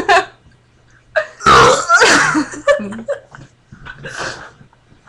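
A person burping deliberately: one long, loud burp with a wavering pitch, starting about one and a half seconds in and lasting about a second, followed by a few shorter, quieter sounds.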